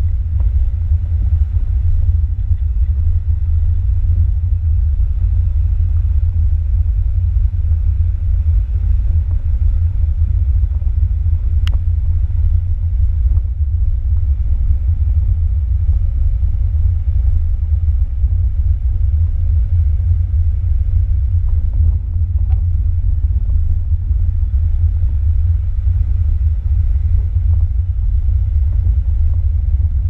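A 1990 VAZ 21063 with a 1.3-litre four-cylinder engine driving along a sandy dirt road, heard from a camera on its bonnet: a loud, steady low rumble of engine and tyres on the track. A single sharp tick comes about twelve seconds in.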